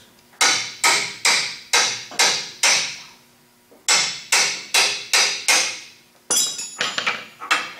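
Hammer blows on metal, a wrench on a plow-frame hydraulic fitting, ringing sharply, about two a second in three runs: six blows, a short pause, five more, then four or five to finish.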